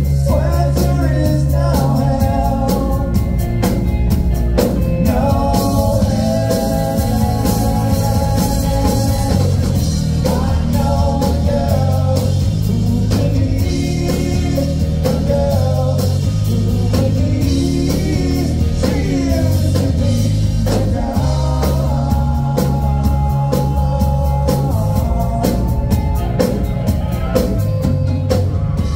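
Live rock band playing: electric guitars and drum kit over a strong bass line, with a lead voice singing.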